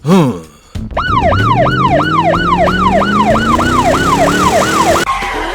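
Siren-like sound effect: a falling wail repeating about three times a second over a slowly rising low tone, lasting about four seconds, after a short up-and-down glide at the start.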